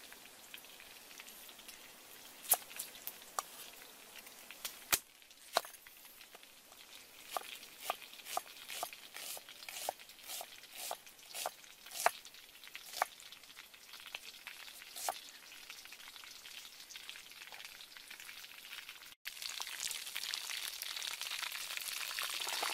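Knife chopping and slicing an onion on a wooden chopping board: irregular sharp knocks over a faint steady hiss. About 19 seconds in, this gives way to a louder, steady crackling sizzle of a whole chicken frying in a wok.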